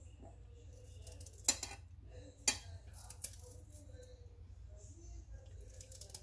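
Knife cutting ginger over a stainless steel mixer-grinder jar, with two sharp metallic clinks about a second apart, roughly a second and a half in, and a lighter one shortly after, as the blade and the pieces hit the steel jar.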